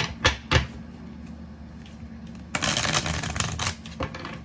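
A tarot deck being shuffled by hand. Two sharp clicks come near the start. About two and a half seconds in, the cards are riffled, giving a fast crackle of flicking cards that lasts about a second.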